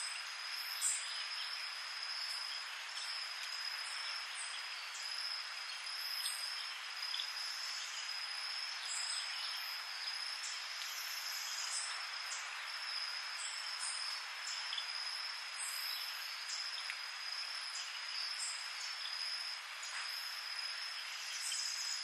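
Night chorus of crickets and other insects: a steady high-pitched trill over a dense hiss of calling, with many short irregular chirps above it.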